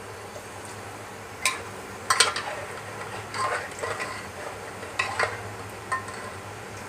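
Spoon stirring potato curry in a cooking pot, scraping and clinking against the metal several times, with a light sizzle and a steady low hum underneath.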